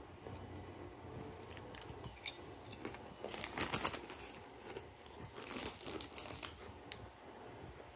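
Kettle-cooked potato chips crunching as they are bitten and chewed close to the microphone, in two crackly spells, the first starting a little after three seconds and the second around five and a half seconds, after a sharp click about two seconds in.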